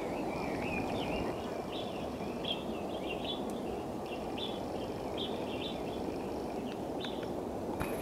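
Outdoor hillside ambience: small birds chirping in short, repeated calls, with a thin steady insect buzz that comes and goes, over a steady rushing background noise.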